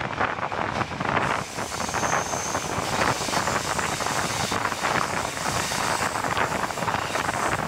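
A diesel-hauled passenger train running along the track, heard from an open carriage window: a steady rumble and clatter of wheels on rails mixed with wind buffeting the microphone. A brief faint high-pitched squeal comes in about two seconds in.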